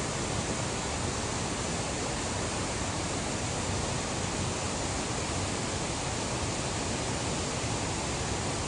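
Creek water rushing fast over rocks and small rapids, a steady, even rush.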